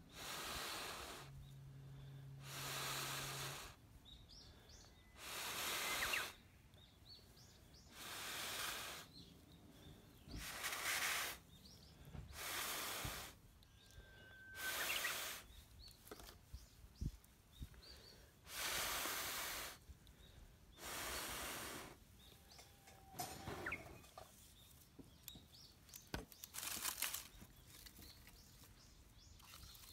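Dry bark fibres rubbed and twisted between the hands to fluff a tinder bundle: a dry rustling scrape about a second long, repeated every couple of seconds.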